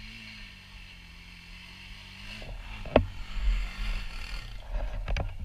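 Dirt bike engine idling steadily, with a single sharp knock about three seconds in, followed by louder bumping and a few clicks near the end.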